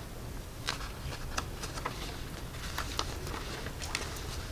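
Room tone with a steady low hum and scattered faint clicks and taps, several a second at irregular spacing.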